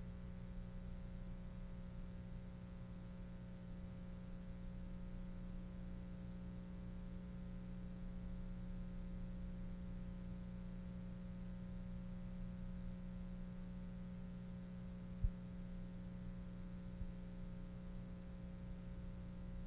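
Steady electrical mains hum with a faint high-pitched whine, unchanged across the picture cut, with one sharp click about fifteen seconds in; no sound from the scene itself.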